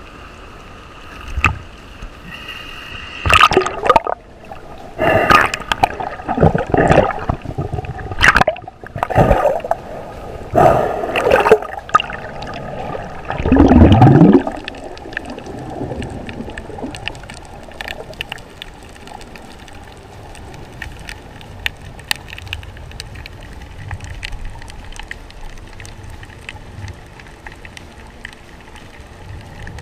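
Water splashing and bubbles gushing around an action camera as a spearfisher dives: a run of loud irregular splashes, the loudest about fourteen seconds in as a cloud of bubbles passes the lens. After that, a steady underwater hiss with faint scattered clicks.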